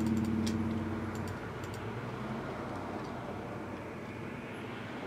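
A low droning hum of several steady tones fades away within the first second and a half. After it comes a faint steady hiss, with a few light clicks in the first two seconds.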